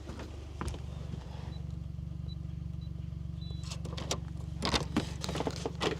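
A vehicle engine idling steadily. A few faint high beeps sound about two seconds in, and a run of clicks and knocks follows in the second half.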